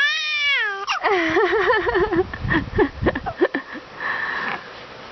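A 7-week-old baby cooing: a high gliding coo at the start, then a longer wavering coo, followed by a few short abrupt sounds and a breathy vocal stretch.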